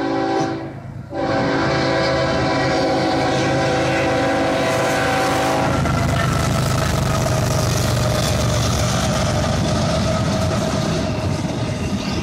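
A locomotive air horn sounds several notes together as a chord. One blast ends about half a second in, then a long blast runs for about five seconds before cutting off: the approaching train sounding for the grade crossing. The two GE ES44AH diesel locomotives then pass close by with a loud, steady rumble, followed by the clatter of double-stack intermodal cars on the rails.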